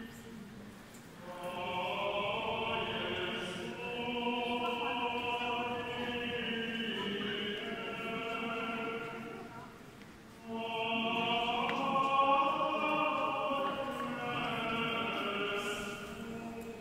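Voices singing a slow liturgical chant, echoing in a large stone church: two long sung phrases with a short break about ten seconds in.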